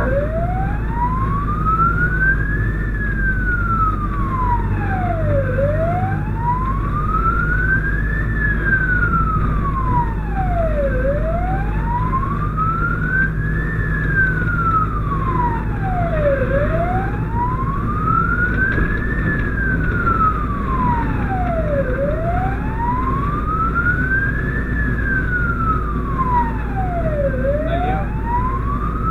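Fire engine's wail siren heard from inside the cab: a slow tone rising and falling about once every five and a half seconds. Under it runs the steady low rumble of the truck's engine and road noise.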